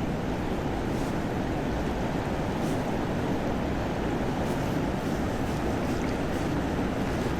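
Steady rushing of a river's flowing water, an even noise with no change.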